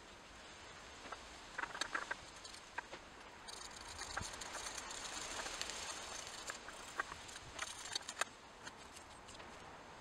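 A thin metal rod stirring and scraping a melting mix of asphaltum, rosin and wax in a small stainless steel pan, giving scattered light clicks and ticks against the metal, with a faint hiss in the middle. The clicks stop near the end as the stirring ends.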